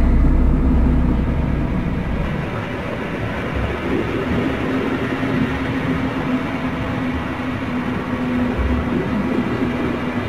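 Deep, steady rumbling drone with a low held tone underneath. The heaviest bass rumble is in the first second or two, then eases off.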